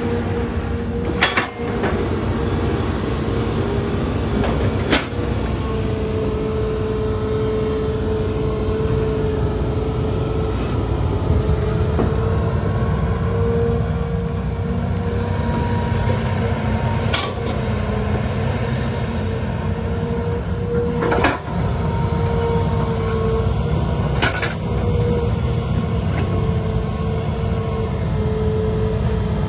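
Hitachi Zaxis hydraulic excavator running steadily under digging load, its engine and hydraulics giving a continuous drone with a steady whine. About five sharp knocks or clanks from the bucket and rock break through it.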